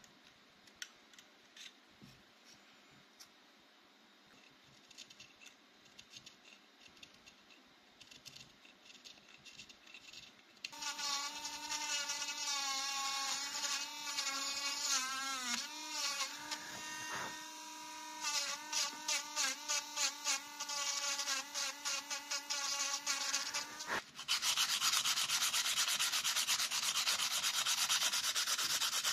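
Faint scratching of a fine pointed tool on carved wood. About a third of the way in, a cordless pen-style mini rotary engraver starts with a steady whine, its pitch wavering and dipping as the fine bit cuts into the wooden knife handle. Near the end, 220-grit sandpaper rubs the wooden handle in a continuous rasp.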